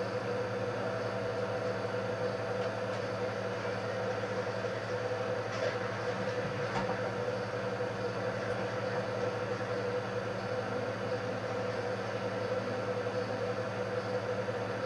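Steady low electrical or mechanical hum over a faint hiss, with a faint tick about halfway through.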